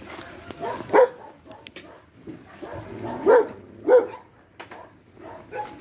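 A dog barking: three short barks, one about a second in and two close together a little past the middle.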